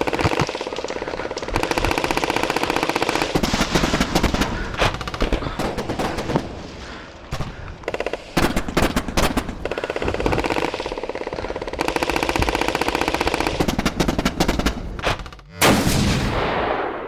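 Airsoft guns firing on full auto in long, rapid bursts with short pauses between them, the shots coming too fast to count. A single sharp, loud report near the end, then a fade.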